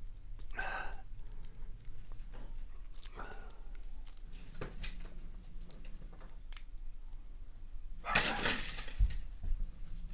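Small metallic clicks and scrapes of lock picks working the pins of a Euro-cylinder lock under tension. Near the end there is a louder clatter with a couple of low thumps.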